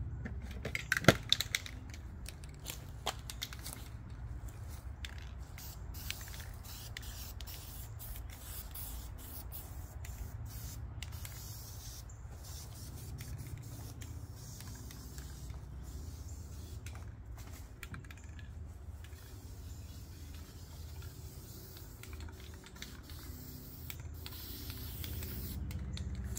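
Aerosol can of marking paint sprayed onto the ground in many short hissing bursts, marking out a digging outline. A few sharp clicks come about a second in.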